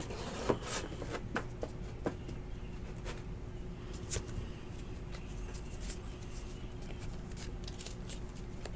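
Hands handling a box of trading cards: a few light clicks and scratches scattered through, over a faint steady hum.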